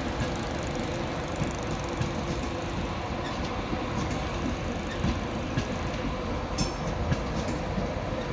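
Locomotive-hauled InterCity Mk4 passenger coaches rolling past on the rails: a steady rumble of wheels on track, with a few clicks from the wheels over rail joints in the second half.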